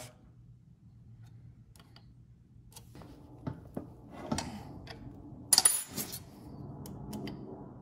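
Scattered light metallic clicks and clinks of a wrench and small hardware being handled on a brake booster's steel mounting bracket, with a louder cluster of clinks about five and a half seconds in.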